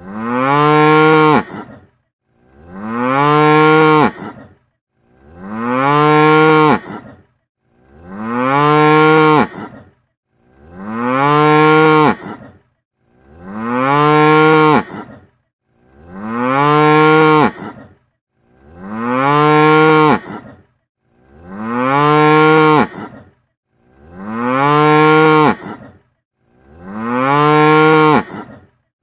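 A cow mooing: the same loud moo repeats about every two and a half seconds, each call lasting about two seconds. Each moo starts with a rising pitch, holds steady, then drops off at the end.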